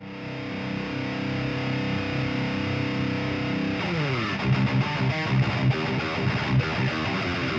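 Heavily distorted electric guitar fitted with a prototype high-output humbucker pickup of about 22k resistance, believed to have an Alnico 8 magnet. It plays a chord that rings for nearly four seconds, slides down, then goes into fast, tight metal chugs.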